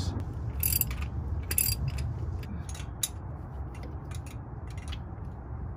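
Ratchet wrench clicking in short, irregular runs as a new coolant temperature sending unit is tightened dry, without thread sealant, into a Ford 351 Windsor V8.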